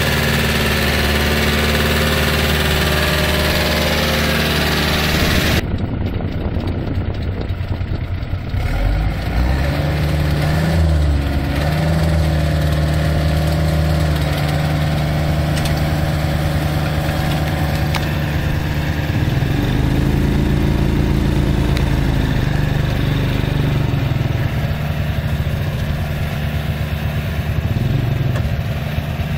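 New Holland tractor's diesel engine running steadily under load as it drives a rotary ditcher cutting a paddy-field bund, its pitch dipping and recovering a couple of times. A loud hissy rush over the engine stops abruptly about five seconds in.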